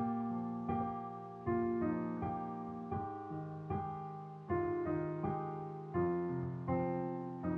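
Piano playing a slow, easy arrangement of a pop song's melody over sustained bass chords, a new chord struck about every three-quarters of a second and left to ring.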